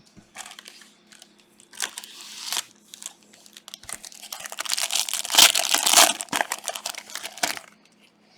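Plastic wrapping on trading-card packs being torn open and crumpled: two short rips about two seconds in, then a longer stretch of dense crinkling.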